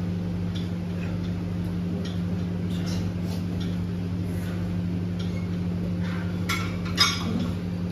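Gym room sound: a steady low hum with scattered light ticks, and metal weights clinking twice near the end.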